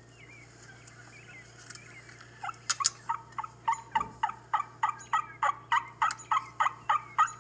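Wild turkey calling: a long series of evenly spaced, yelp-like notes, about three a second, starting about two and a half seconds in. It is played back through a laptop speaker.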